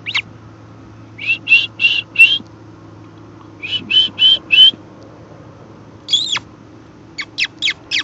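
American oystercatcher chick calling from inside its pipped egg: two runs of about four quick, high peeps, then a single falling call and a few fast falling notes near the end.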